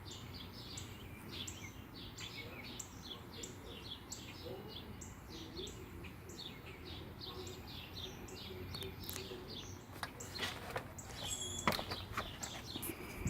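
A bird chirping over and over in short, quick chirps, about three a second, over a low steady hum. From about ten seconds in the chirping gives way to a run of sharp clicks and rustles.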